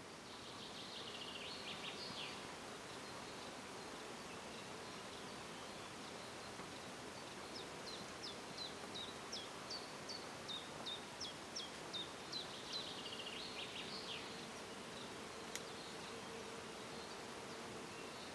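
Woodland ambience: a steady hiss with an insect hum, and songbirds singing. A short high trill comes near the start, then a run of about a dozen high down-slurred notes, roughly two a second, then another trill. A single sharp click comes later.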